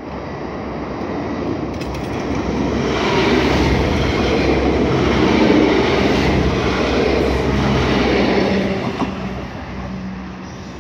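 Electric multiple-unit train passing close by, its running noise building to a peak over several seconds and then falling away. Near the end a quieter train approaches.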